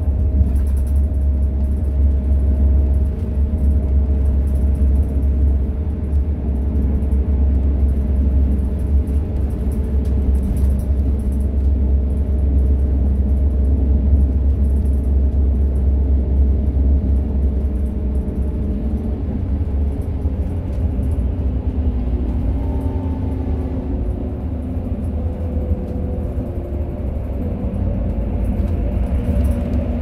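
Interior of a moving commuter coach bus: a steady, loud low rumble of engine and road, with engine tones above it. The tones shift in pitch about two-thirds of the way through as the bus changes speed, and a rising hiss of tyres or air comes in near the end.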